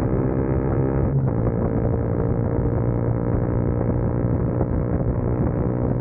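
CFMoto 300SS single-cylinder engine pulling under acceleration at highway speed, with a short break in its note about a second in.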